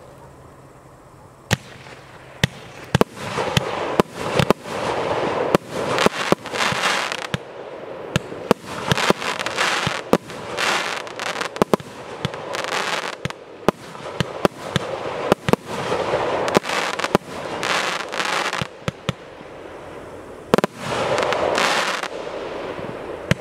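A 36-shot, 1.2-inch fireworks cake (TKB231 "Graffiti") firing shot after shot: sharp launch and burst reports, most followed by a second or so of crackling hiss from glittering stars. The first report comes about a second and a half in.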